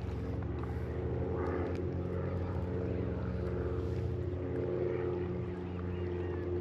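Steady low engine drone that shifts slightly in pitch about halfway through.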